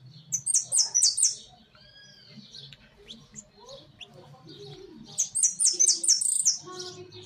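Saffron finch (jilguero amarillo) calling: two quick runs of four sharp, high, downward-slurred chirps, one at the start and one about five seconds in, with softer chirps between.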